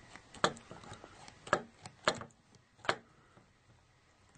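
Heavy-duty manual tensioner for stainless steel cable ties at work on a tie: four sharp clicks, the first about half a second in, with lighter ticks between, as the tie is tightened.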